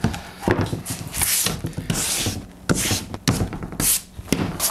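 Stiff-bristled hand brush swept across a sheet of plywood in short strokes, several quick swishes about a second apart, with a few light knocks of wood.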